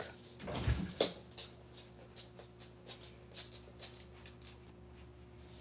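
Makeup sponge dabbing against the skin of the neck: faint soft taps, two or three a second, after a low thump and a sharp click about a second in.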